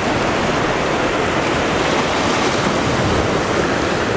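Ocean surf breaking against a rocky shore, a steady rushing wash of waves.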